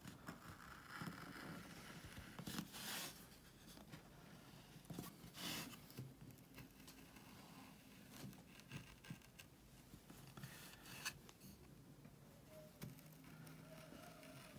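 Hand-pushed wood-carving gouge cutting into a board along a drawn outline: a few faint, short scraping cuts, several seconds apart.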